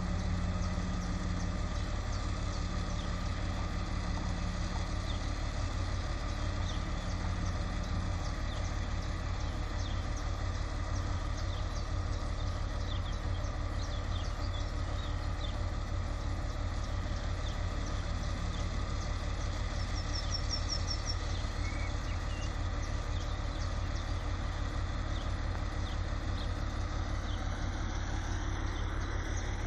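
Vintage diesel railcar's engine idling steadily while it stands in the station, a constant low rumble. Birds chirp briefly over it, with a quick series of chirps about two-thirds of the way through.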